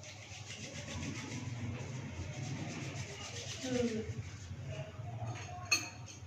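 Rustling and rubbing as plastic snack packets are handled, with a sharp click near the end.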